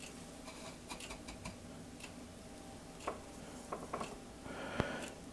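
Faint, irregular clicks and taps of donuts and plates being handled and set down on a wire cooling rack, with one sharper click near the end and a soft rustle of shredded coconut just before it.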